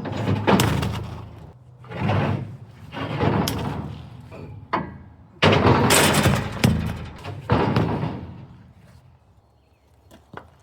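Concrete pump pushing concrete through its hose in repeated loud, uneven surges, some starting with a sudden clunk, dying away near the end.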